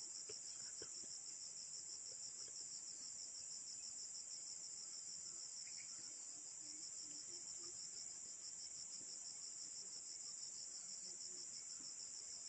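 A continuous high-pitched insect chorus: a steady, fast-pulsing trill that never breaks, with a few faint ticks and murmurs underneath.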